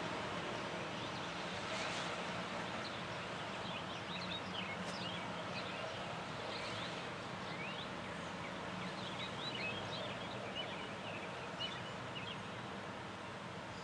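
Steady rain noise with a low steady hum underneath. From about four seconds in, small birds chirp repeatedly.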